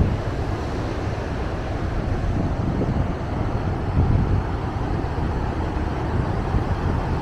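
Wind buffeting the microphone over the steady wash of rough ocean surf breaking on a sand beach.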